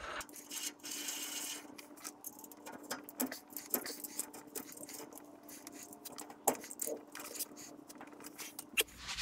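Irregular metallic clicks and clinks of the large rear-axle hub nut on a 1986 GMC Sierra 3500 dually being run back onto the spindle threads and snugged down. A single sharper knock comes about six and a half seconds in.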